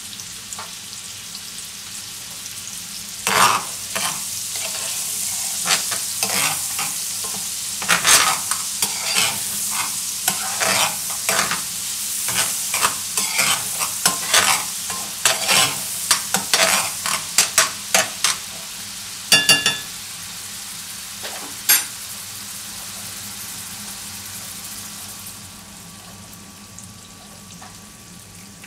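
Chopped button mushrooms sizzling in butter in a stainless steel frying pan, stirred and scraped with a metal spoon in many quick strokes, with a short metallic ring from the pan partway through. The sizzle quietens near the end.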